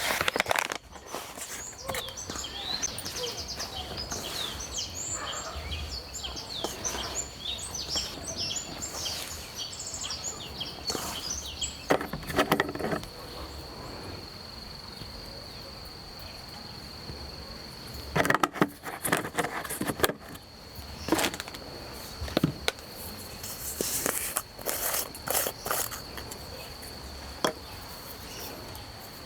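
An insect's steady high trill running on, with many short bird chirps over it in the first third. Scattered knocks and clatter come in a few clusters later on.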